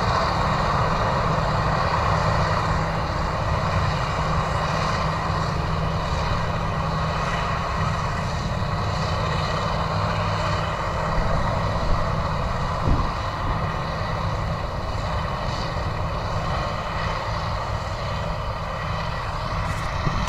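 Claas self-propelled forage harvester running steadily at work, chopping grass for silage and blowing it into a trailer, with a steady high whine over the engine and tractor noise.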